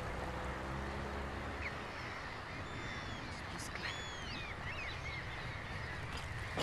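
Common gulls calling from the colony, a few high, arching calls in the middle, over a steady outdoor background. A low drone fades out in the first two seconds.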